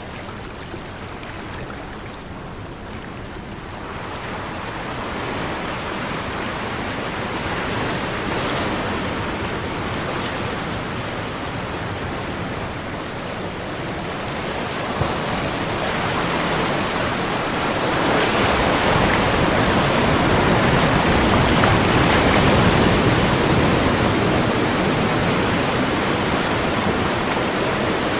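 Ocean waves washing in, a steady rush of surf that swells gradually and is loudest in the second half.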